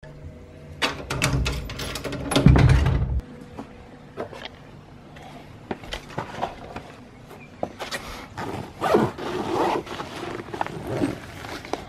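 Keys and a door lock clicking and rattling, ending in a heavy thunk about three seconds in; then scattered clicks and rustling as a nylon backpack is handled and its front pocket opened.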